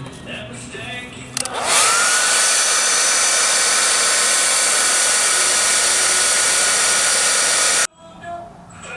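Handheld hair dryer switched on about a second and a half in. Its motor whines up to speed, then it blows with a steady rush of air and stops suddenly near the end.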